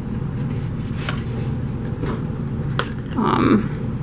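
Light clicks of plastic paint cups being handled and tipped, over a steady low hum. A short voice sound comes about three seconds in.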